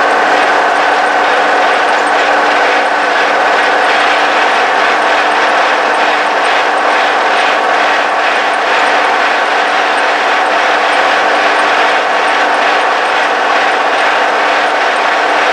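Case 1030 tractor's six-cylinder diesel engine running steadily under way, loud and even, heard from inside the cab.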